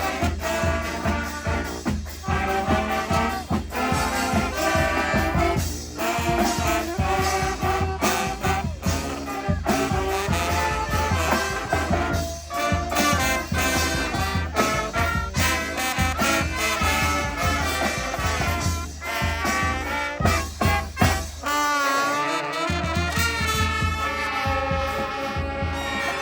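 Street brass band playing an upbeat instrumental: trumpets and trombones over a driving beat and a low bass line. The low end drops out briefly a little over 20 seconds in while the horns carry on.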